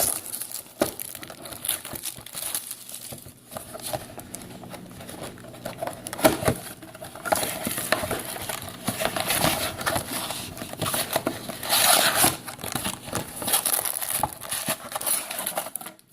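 Plastic and cardboard packaging of a trading-card mega box crinkling and rustling as it is handled and torn open, with many irregular small crackles.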